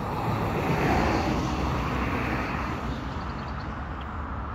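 Steady road traffic noise over a low hum, with a vehicle passing about a second in.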